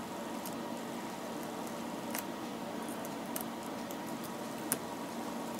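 A few faint, sharp clicks from an X-Acto knife blade prying at shattered glass, over a steady faint hum; the loudest click comes near the end.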